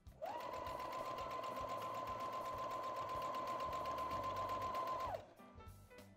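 Brother electronic sewing machine stitching a straight seam at a steady speed: a fast, even run of stitches over a steady motor whine. It starts just after the beginning and stops about five seconds in.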